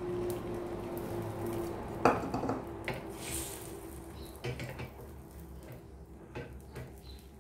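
Small metal frying pan clinking and knocking against a gas-stove grate, a few sharp clicks with the loudest about two seconds in.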